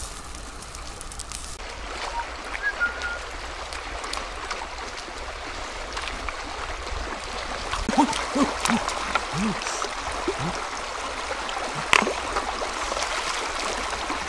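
Shallow stream running over rocks, a steady rushing and gurgling of water. Over it, a few short pitched sounds a little past halfway, and two sharp clicks, one about halfway and one near the end.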